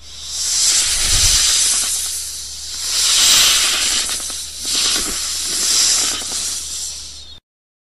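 Snake hissing: a series of long hisses that swell and fade, then cut off suddenly near the end.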